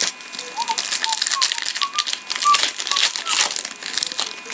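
Trading cards and their pack wrapper being handled: a dense, irregular run of rapid crinkling and clicking.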